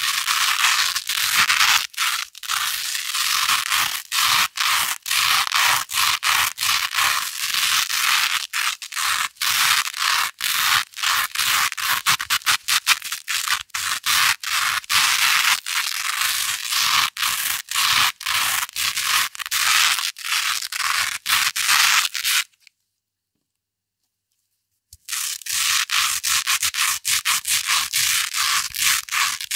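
Hook-and-loop (velcro) hook tape rubbed and scratched against loop tape in rapid repeated strokes, a crisp, crunchy scratching. It cuts out completely for a couple of seconds about three quarters of the way through, then starts again.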